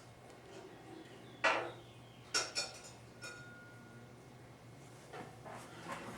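A few light metallic clinks and clatters of transmission clutch plates being handled, the sharpest about a second and a half in and two more close together around two and a half seconds in, then softer ticks.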